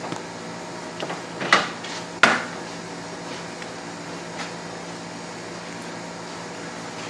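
A few sharp knocks and clacks of kitchenware being handled, the loudest a little over two seconds in, over a steady appliance hum.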